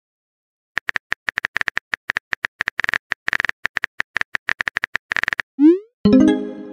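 Phone keyboard typing sound effect: a quick, irregular run of clicks as a message is typed. It ends in a short rising bloop as the message is sent, then a brief tone with many overtones that fades out.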